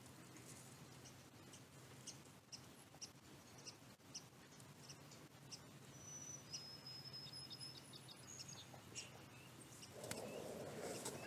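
Very quiet, with faint high bird chirps and peeps, a few short ones clustered past the middle, and scattered light ticks. A low rushing noise comes up near the end.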